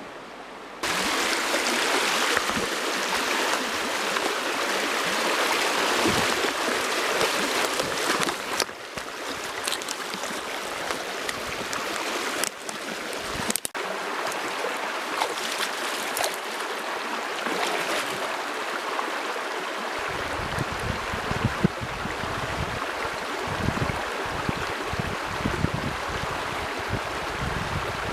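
Mountain stream running over rocks: a steady rush of water. In the last third, irregular low rumbling buffets sound on top of it.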